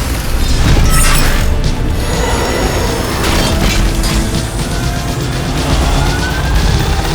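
Dramatic background music mixed with heavy booming sound effects and a run of sharp hits in the first couple of seconds. These are cartoon action effects for a transformation and battle.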